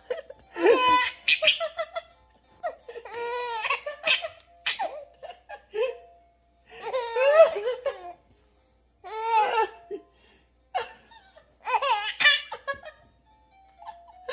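A 109-day-old baby laughing out loud in about five high-pitched bouts of laughter and squeals, with short pauses between them.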